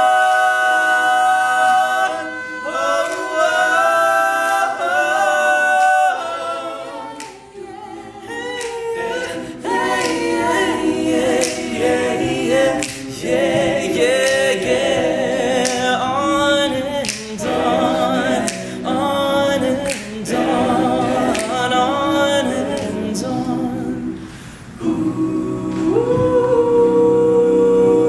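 All-male a cappella group singing in close harmony, with sharp rhythmic hits through the middle and a final chord held for the last few seconds.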